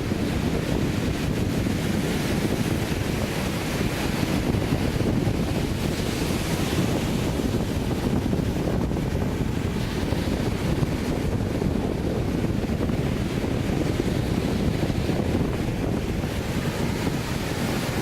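Sea waves breaking and washing up on a sandy beach, a steady rush of surf, with wind buffeting the microphone.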